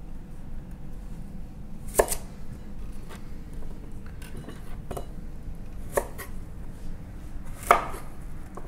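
Kitchen knife cutting through a daikon radish and knocking on a wooden cutting board: about five separate chops a second or so apart, the loudest about two seconds in and near the end.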